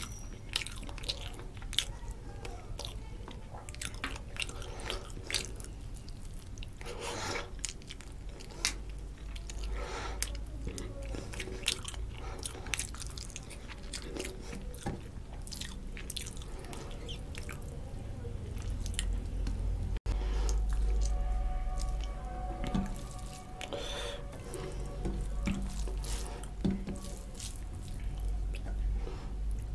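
Close-up eating sounds: wet chewing and lip smacks of curry-soaked rice, with squelches of fingers mixing rice on a plate, as many short clicks over a steady low hum.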